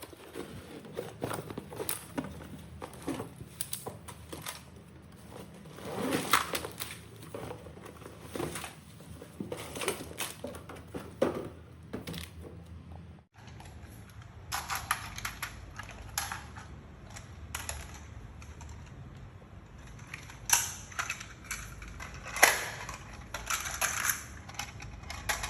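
Toy train set packaging and plastic parts being handled: irregular rustling, crinkling and clicking, over a steady low hum, with a brief break about halfway through.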